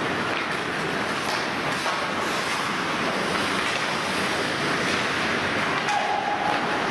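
Steady rushing noise of a hockey game in play, with a few faint sharp clicks.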